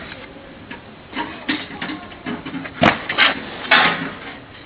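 Metal knocks and clatter at a hydraulic waste-paper baler while steel baling wire is threaded and tied around the bale: light rattling, then three loud sharp clanks a little after halfway.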